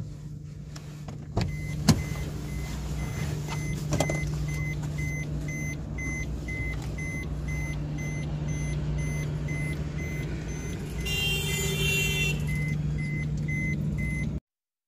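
Parked car with its engine idling in a steady low hum, and a car warning chime beeping at an even pace over it. A few sharp clicks and a thump come in the first few seconds, and the sound cuts off suddenly just before the end.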